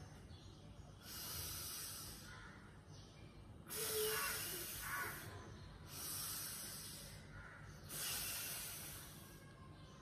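A woman breathing audibly and deliberately while doing a yoga stretch: four long, slow breaths, each with an airy hiss, paced to the stretching movement.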